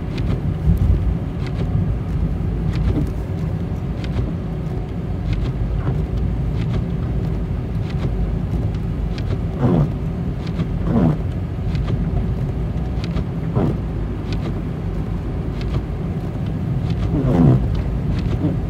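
Steady low road and engine rumble heard inside a car's cabin driving on a snow-covered highway, with scattered short clicks as the windshield wipers sweep over the icy glass. A few brief sounds falling in pitch come through in the second half, the loudest near the end.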